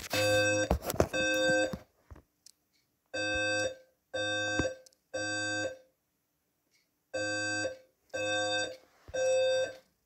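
Code-3 520 Hz fire alarm evacuation tone sounding in the temporal-three pattern: three half-second beeps, a pause of about a second and a half, then three more, repeating through the pause between voice evacuation announcements.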